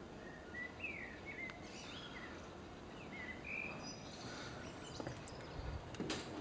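Birds singing outdoors: a series of short chirps and whistled, gliding notes in the first half, over a steady low rush of wind. Near the end a low rumble of wind on the microphone builds up.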